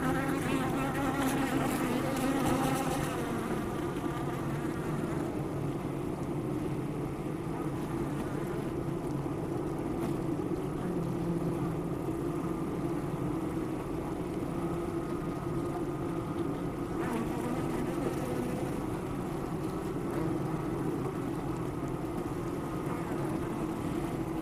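Honey bees buzzing around a hive: a steady hum of many bees, with a closer, wavering buzz during the first few seconds.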